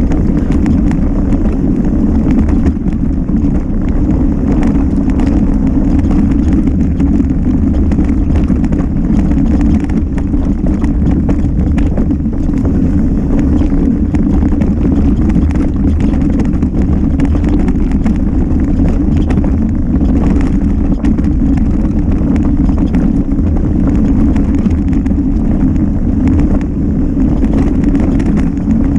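Mountain bike on a fast downhill run: constant wind rush on the camera microphone with continuous rattling and knocking from the bike over the rough trail.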